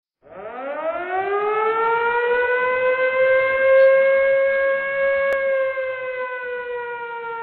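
Siren winding up over about a second and a half to a steady wail, then slowly starting to wind down near the end. A brief click about five seconds in.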